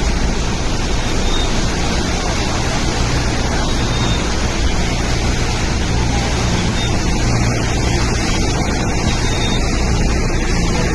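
Steady, loud rushing of cyclone wind and heavy rain, with a low hum underneath.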